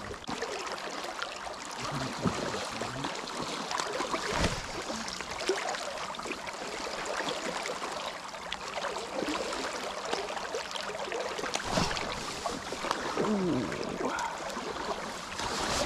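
Fast, shallow river current rushing and rippling steadily, with a single soft knock a little over four seconds in.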